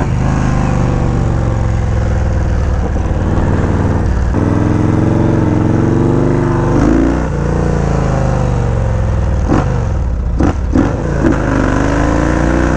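Yamaha Road Star Warrior 1700's V-twin engine pulling under way, its pitch rising as it revs up, dropping at a gear change, then climbing again, with wind rushing over the microphone. A few sharp clicks come about ten seconds in.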